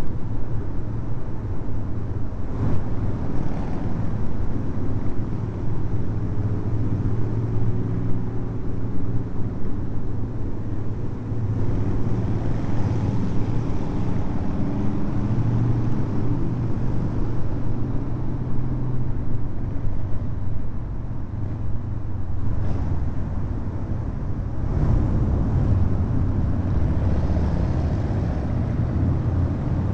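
Harley-Davidson V-twin motorcycle engine running steadily at cruising speed inside a road tunnel, with other motorcycles riding close by.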